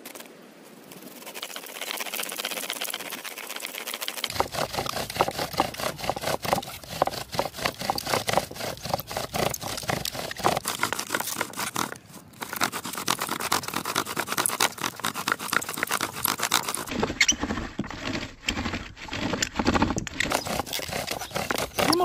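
Bow drill spindle squeaking and grinding in its socket in a dry log as the bow is sawed back and forth, a rhythmic friction squeal with each stroke, with a short break about twelve seconds in. The spindle is drilling to build heat and hot wood dust for an ember.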